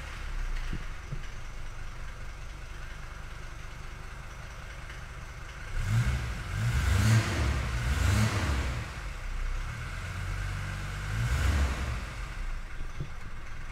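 Mercedes-Benz 300GD's five-cylinder diesel starting from cold after the glow plugs have warmed. Several seconds of low steady background give way about six seconds in to the engine catching and revving up and down for a few seconds. It swells again briefly near the end.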